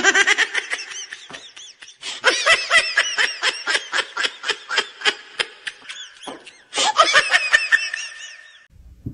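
A person laughing hard in rapid, high-pitched bursts, breaking off briefly about six seconds in before a second fit of laughter.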